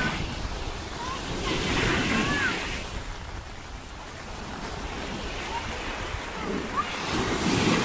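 Small waves washing in and breaking on a shallow bay shore, with wind rumbling on the microphone. The surf swells up about two seconds in and again near the end.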